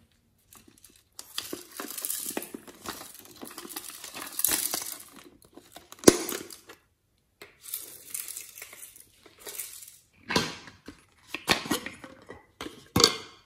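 Hands handling and prying open hard plastic toy containers: rubbing and scraping of plastic, with one sharp snap about six seconds in, the loudest sound, as the lid is forced open. Several shorter bursts of plastic handling follow near the end.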